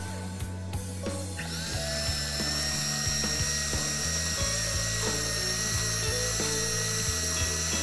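Electric hand mixer switching on about a second and a half in and running with a steady high whine, its beaters whipping gelatin and sugar syrup in a glass bowl for marshmallow. Background music plays underneath.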